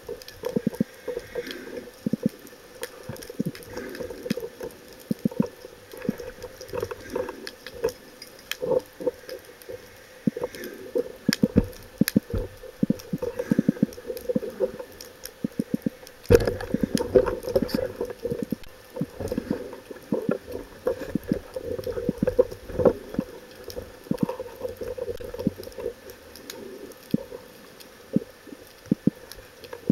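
Underwater sound through a camera housing: water rushing and sloshing with many irregular knocks and clicks as the speargun, line and speared fish are handled, busier from about halfway through.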